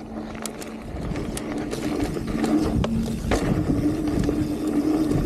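Mountain bike coasting down a dirt trail: the rear freehub buzzes as a steady whine, over tyre rumble and scattered clicks and rattles from the bike on the ground. It gets louder as speed builds.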